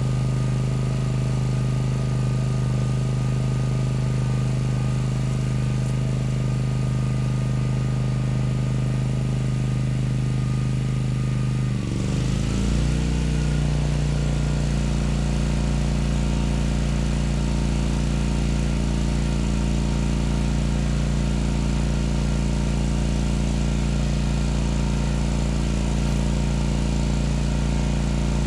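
WEN GN400i inverter generator's engine running steadily under a 1250-watt load. About twelve seconds in, its pitch dips briefly and then settles at a new, heavier steady speed as a further 1500-watt heater load comes on, 2750 watts in all.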